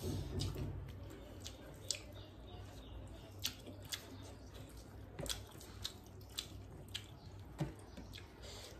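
Close-up eating sounds: irregular wet clicks and smacks of chewing, with fingers working rice on a plate, about a dozen sharp clicks spread unevenly.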